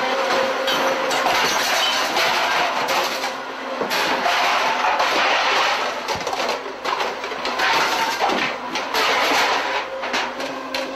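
Busy kitchen clatter: a dense run of knocks and clicks from utensils and cookware, with a steady noise underneath.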